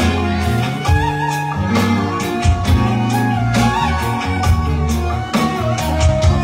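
Live band music with no singing: a guitar-like lead melody over bass and a drum beat, an instrumental passage between sung lines.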